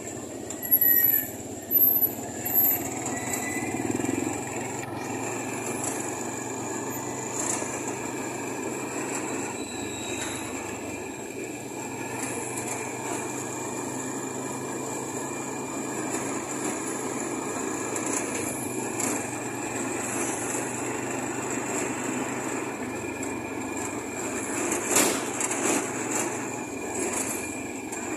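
Street traffic heard from a moving vehicle: motorcycles and motorcycle-sidecar tricycles running past, with a steady engine hum and road noise. A few short, loud, high-pitched sounds come in the first three seconds.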